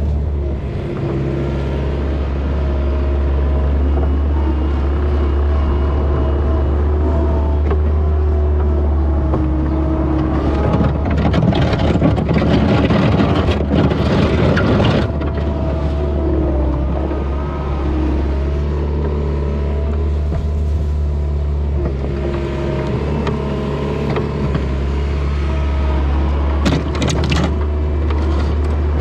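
A vehicle engine running steadily under a deep drone, its tones wavering up and down in pitch. It grows louder and rougher for a few seconds in the middle.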